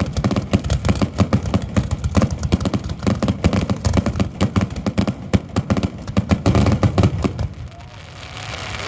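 End of a fireworks finale: a dense barrage of shells bursting, many bangs a second, that thins out and stops about seven and a half seconds in. In the last second or so, whistles and cheering start to rise.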